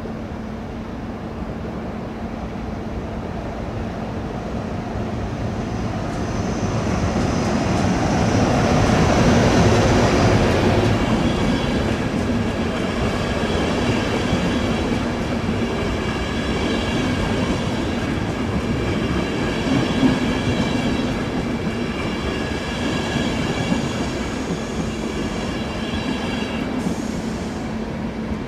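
ÖBB double-deck passenger train running past along the platform: a rumble that swells as it approaches, loudest about ten seconds in, then holds steady as the coaches go by. High steady tones ring over the rumble for most of the pass.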